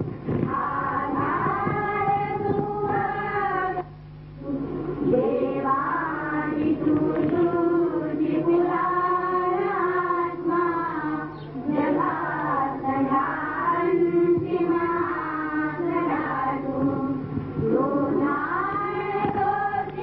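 A large group singing together in unison, a chant-like hymn in long held phrases with a short break for breath about four seconds in. A low steady hum runs underneath.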